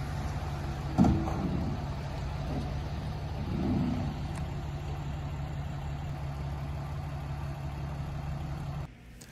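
Dodge Ram dually pickup's Cummins turbodiesel running steadily at low revs as it slowly tows a heavy boat on a triple-axle trailer, with one sharp knock about a second in.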